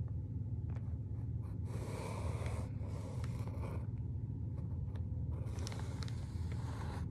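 A felt-tip marker drawing continuous lines on sketchbook paper, heard as soft scratching in strokes that are busiest about two to four seconds in and again near the end. A steady low hum runs underneath.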